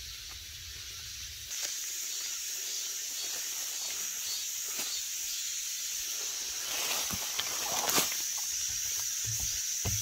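A steady high-pitched insect chorus that sets in about a second and a half in, with a few light footsteps crunching on dry leaf litter.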